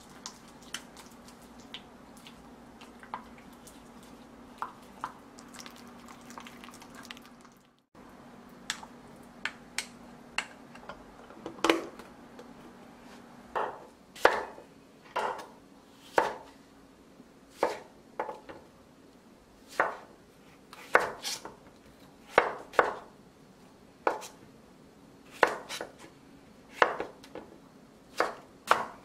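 Faint clinks of chopsticks stirring a sauce in a glass bowl. After a brief break about 8 seconds in, a nakiri knife chops cucumbers on a wooden cutting board with sharp knocks about once a second, louder than the stirring.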